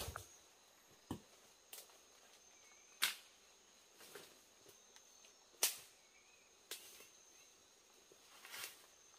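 Sharp knocks of a tool striking wood, about eight irregular blows a second or two apart, with a steady high insect drone underneath.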